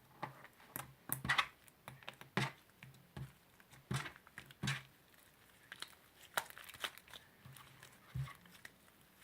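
Butter slime, glue slime mixed with soft clay, being kneaded and stretched by hand, giving irregular sticky crackles, pops and squelches. The slime is still sticky at this stage.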